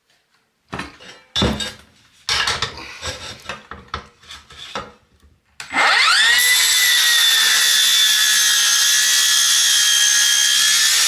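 Knocks and clatter as the steel tube and saw are handled into place. About five and a half seconds in, a Milwaukee circular saw with a Diablo Steel Demon 7-1/4" metal-cutting blade, a resharpened one, spins up with a rising whine and cuts into steel square tube with a loud, steady, high-pitched whine.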